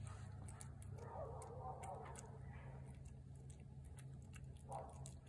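A cat chewing wet food off a china plate: faint, irregular clicking chews and smacks, over a low steady hum.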